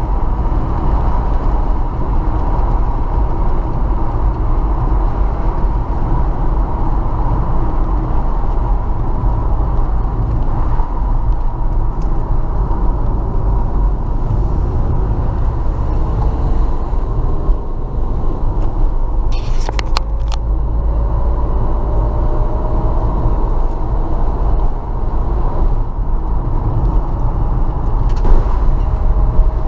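A car driving, with a steady low road rumble. In the second half a faint engine tone rises slowly, and a couple of brief clicks come about two-thirds of the way through.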